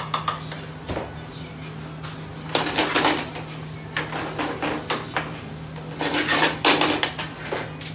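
Metal spoons and utensils clattering and scraping against steel pans, pots and spice trays in irregular bursts, with a few single clinks, over a steady low hum from the kitchen's extractor hood.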